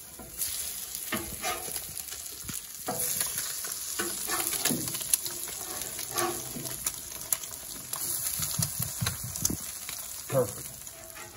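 Eggs frying in bacon grease on a Blackstone steel griddle top, a steady sizzle. Over it, a metal spatula scrapes and clicks against the griddle surface as it slides under the eggs and flips them.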